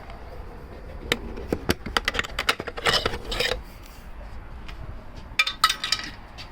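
Clicks, knocks and scraping as a part is worked loose and lifted off a KTM 390 motorcycle by hand. A run of clatter fills the first three and a half seconds, and a brief second clatter comes near the end.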